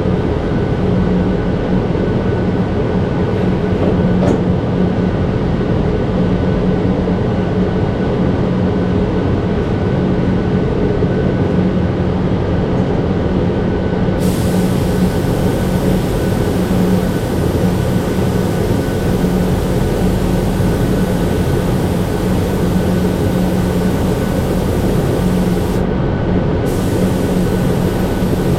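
Steady low machine hum from the spraying setup. From about halfway in, the hiss of a Cerakote spray gun's air joins it, stopping briefly near the end and then starting again.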